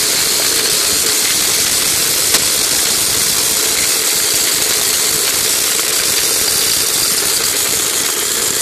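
A 4.5-inch electric angle grinder running at full speed inside a homemade rock-crusher housing, with rocks rattling and grinding inside as they are crushed to powder. The noise is loud and steady throughout.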